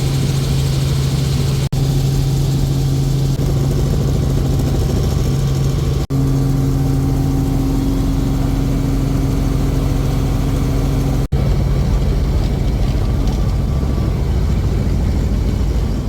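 Helicopter engine and rotor noise: a loud, steady low drone, broken by three brief dropouts where clips are joined, fading out at the very end.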